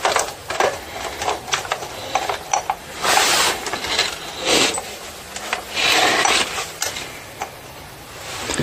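Metal saw chain on a Stihl MS 180 chainsaw clicking and rattling as it is worked around the clutch drum sprocket and onto the guide bar, with a few longer rubbing sounds of metal parts being slid into place.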